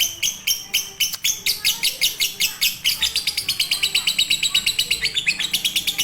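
Lovebird chattering in a long unbroken run of short, sharp chirps, speeding up from about four a second to about eight a second partway through.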